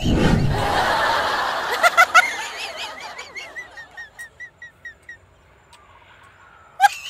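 Comedy laugh sound effect: a loud burst of laughter, then a run of short high cackles, about three to four a second, that fade away.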